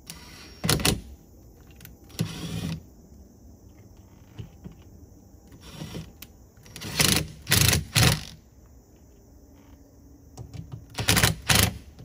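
Ryobi cordless impact driver running in short bursts, driving the screws that fasten an RV door's latch plate: a single burst, a second one, then a quick group of three and a final pair.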